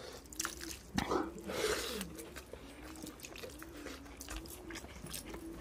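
A dove cooing over and over, a string of short low notes that rise and fall, alongside soft wet clicks and chewing from rice soaked in water being mixed by hand and eaten.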